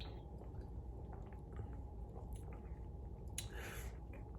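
Faint mouth sounds of a man tasting a sour beer: small lip smacks and tongue clicks, with a short puff of noise about three and a half seconds in.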